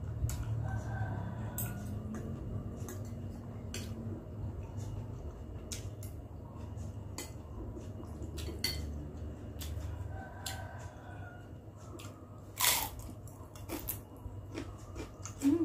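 Close-up eating sounds: chicken noodles being slurped and chewed, with a spoon and fork clinking against a glass bowl, over a steady low hum. Near the end comes one loud crunch as a fried wonton cracker is bitten.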